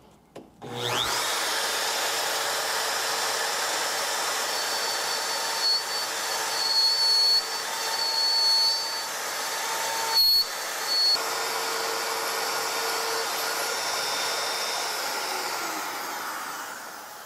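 Router mounted in a Tianli mortising jig spinning up about a second in, then running steadily while its bit cuts a mortise into the end of a mitered board, with several short louder stretches. It winds down near the end.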